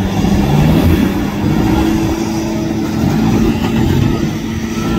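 Engine of an extreme off-road competition vehicle running under load, its pitch rising and falling as it revs.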